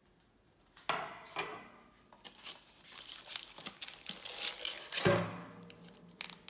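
Aluminium foil crinkling and crackling as a baked loaf is lifted out of a metal loaf pan by its foil lining. The pan knocks once about a second in, and gives a louder clunk with a short low ring about five seconds in.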